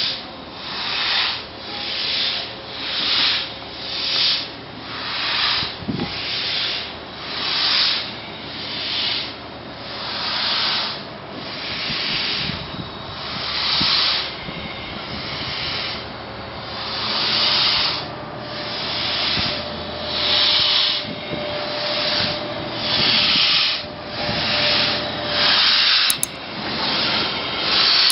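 Class 38 (Prussian P 8) steam locomotive moving slowly with no visible steam, its cylinder exhaust giving an even, hissing chuff about once a second.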